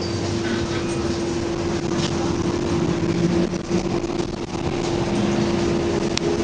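Trolleybus cabin noise as it drives: a steady electric hum over the rumble of its ride, with a single sharp click near the end.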